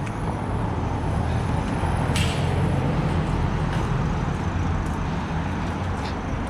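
Motor vehicle traffic: an engine running with a steady low hum and road noise, with a short hiss about two seconds in.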